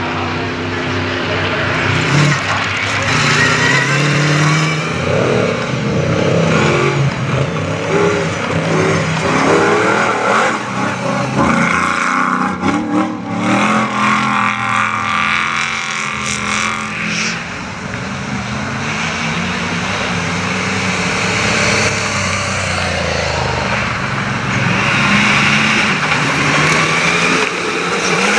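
Off-road 4x4 rally cars driven hard across a muddy field one after another, engines revving up and falling back through the gears, with the rush of tyres churning dirt.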